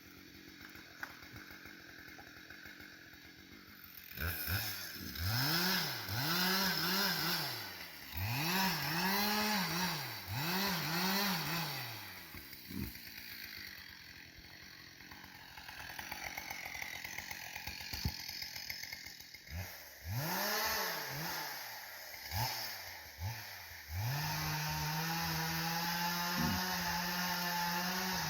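Chainsaw revved up and down in a string of short blips with quieter idling between them. About three-quarters of the way in it is held steadily at full throttle, as when cutting into timber.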